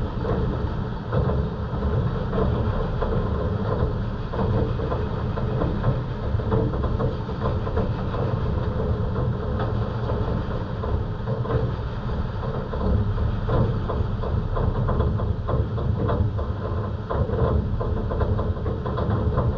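Heavy rain falling steadily, a dense crackling patter over a constant low rumble, with no change or pause.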